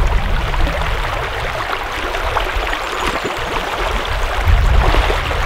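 Shallow river running over stones with a steady rush of water, and a low rumble at the start and again about four and a half seconds in.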